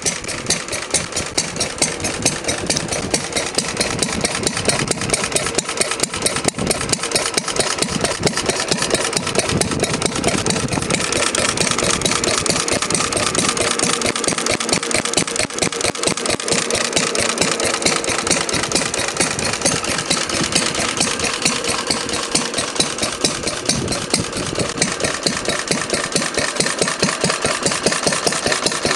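Lister single-cylinder stationary engine running steadily at idle, with a rapid, even beat of firing strokes.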